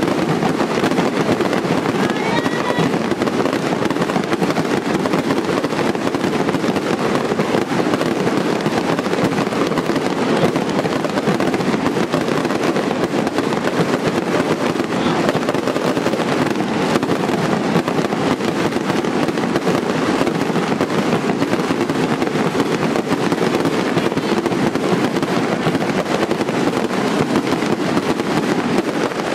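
Fireworks barrage: a continuous, dense crackle of rapid explosions, too fast to count, with no break.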